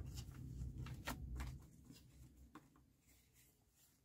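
Paper banknotes being handled and slipped into a clear plastic binder pocket: several short, faint rustles and crinkles.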